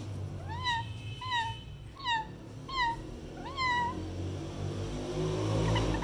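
Female Indian ringneck parrot giving five short calls, each rising and then falling in pitch, about one every two-thirds of a second, then faint quick chirps near the end.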